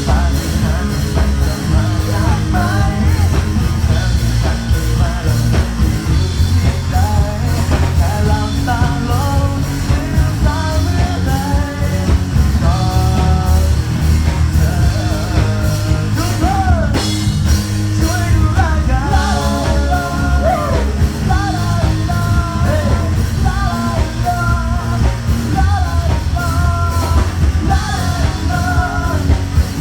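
Rock band playing a song: drums, bass and guitar under a sung melody, loud and steady.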